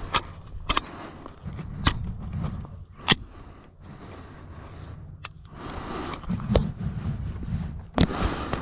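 Suppressed Sig Sauer MPX 9mm carbine fired in slow single shots, several sharp reports at irregular intervals, the loudest about three seconds in. Rustling handling noise between the shots.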